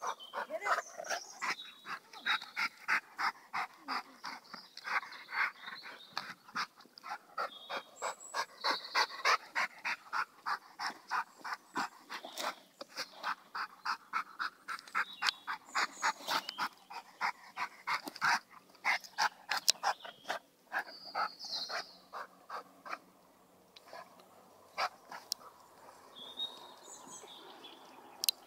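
Dog panting hard in quick regular breaths, about three a second, mixed with sharp cracks and crunches of wood as it chews a log. The panting stops about two-thirds of the way through, leaving only a few scattered cracks.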